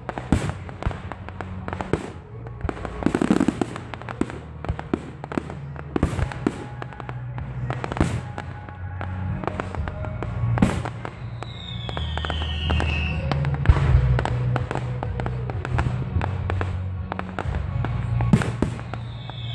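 Fireworks display: a rapid, irregular run of shells bursting with sharp bangs and crackles, over music with steady low notes.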